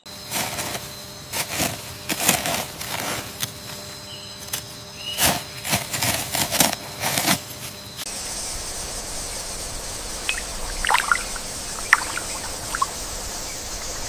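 Irregular scratchy crackling and rustling of a rhinoceros beetle digging through loose soil. After about eight seconds this gives way to a steady hiss with soft trickles and drips of water.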